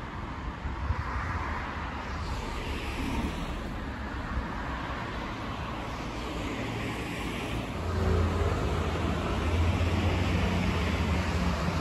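City street traffic: cars passing with tyre noise swelling and fading twice. About eight seconds in, a steady, louder low engine hum from a vehicle close by joins in.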